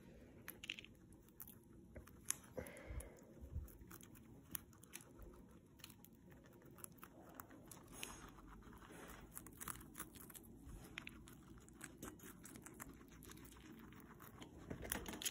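Guinea pigs biting and chewing a raw broccoli floret held in a hand: faint, quick crunching clicks, irregular and continuous.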